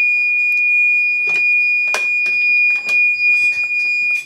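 Hakko soldering station's buzzer sounding one long, steady high-pitched beep that cuts off near the end, with a few faint clicks under it.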